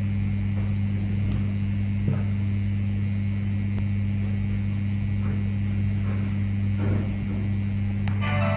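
Steady low electrical hum with a weaker higher overtone, broken by a few faint clicks.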